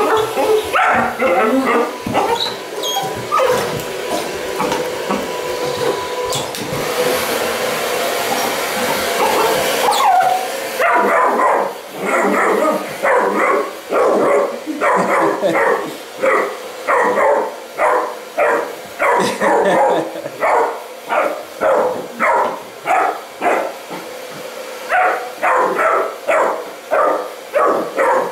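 A handheld hair dryer blows steadily for about the first ten seconds, then goes off. A Bernese mountain dog puppy barks over and over, about two short barks a second.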